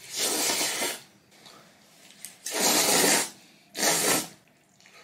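A person slurping jjajang noodles off chopsticks: three loud slurps, one at the start, one about two and a half seconds in and a shorter one just before four seconds.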